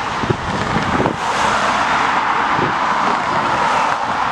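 Jet engines of a taxiing Ryanair Boeing 737-800, a steady engine noise that grows louder about a second in and then holds, with gusts of wind buffeting the microphone early on.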